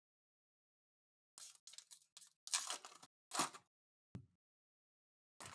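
Trading card pack wrappers being torn and crinkled in a handful of short, scratchy bursts, then a single sharp click, then steadier crinkling that starts near the end.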